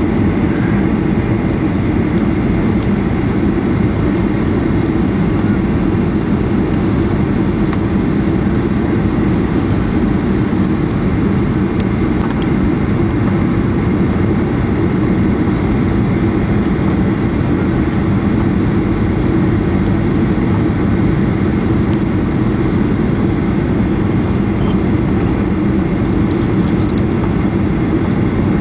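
Steady engine and airflow noise heard from inside the cabin of a jet airliner as it descends with flaps extended.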